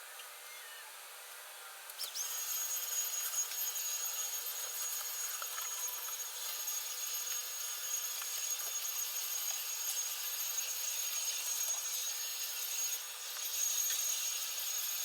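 Vacuum cleaner switching on about two seconds in and running steadily, its motor giving a constant high whine over a rushing hiss.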